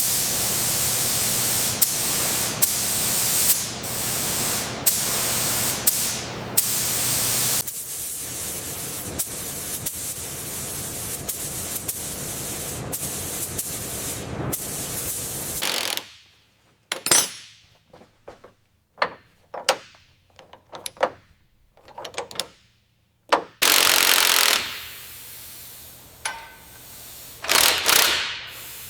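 Workshop tool noise: a steady hissing, spray-like sound with a fast mechanical rattle for about fifteen seconds, then a run of short hissing bursts and a couple of longer blasts.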